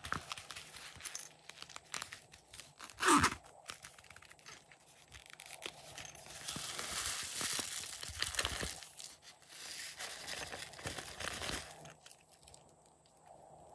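Clear vinyl zippered pouch being squeezed and handled, its plastic crinkling, and its zipper pulled open. A loud brief sound that falls in pitch comes about three seconds in.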